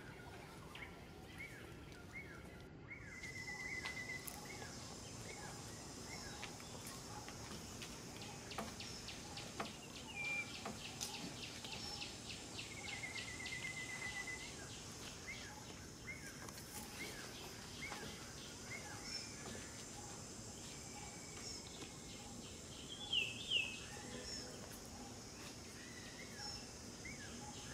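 Outdoor ambience: a steady high insect drone sets in a few seconds in, with scattered bird chirps and short trills over it. The loudest sound is a pair of quick high chirps near the end.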